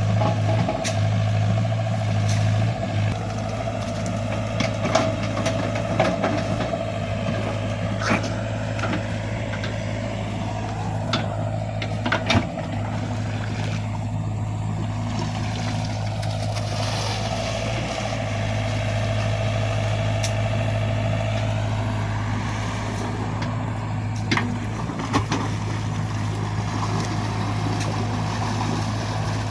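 XCMG mini excavator's diesel engine running steadily under work, with a whine that sweeps up and down in pitch as it digs a ditch, and scattered sharp knocks.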